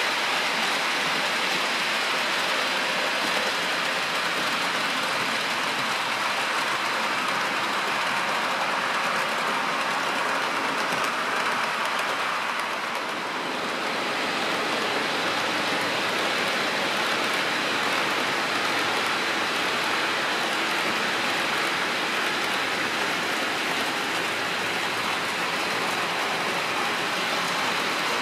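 Steady rushing noise of OO gauge model trains running on the layout, motors and wheels on the track, briefly quieter about halfway through.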